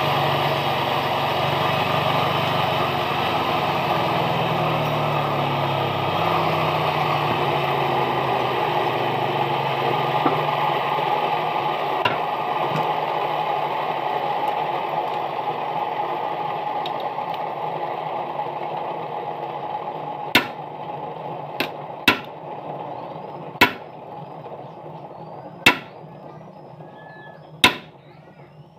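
Bench grinder running while a small metal part is held to its wheel, then slowly winding down. Near the end, about six sharp hammer taps on metal, one to two seconds apart.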